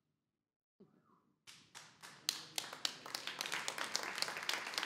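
Audience applause: a moment of silence, then scattered hand claps starting about a second and a half in and quickly building into steady clapping from a small crowd.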